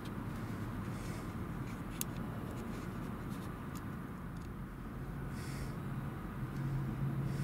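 Steady low rumble of idling engines and road traffic, heard from inside a car, with a few faint clicks; a low engine hum grows louder near the end.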